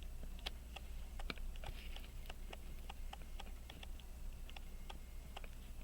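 Light, irregular clicks and taps, a few a second, of small hand tools against a pocket watch movement as it is handled and set up on its support.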